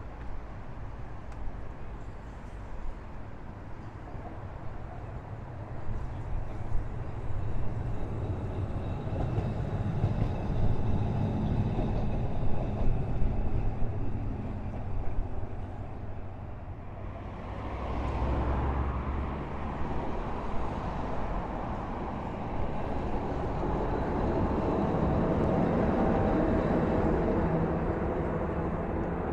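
Heritage electric tram running along its track, with wind buffeting the microphone; the running grows louder about two-thirds of the way in and stays loud toward the end.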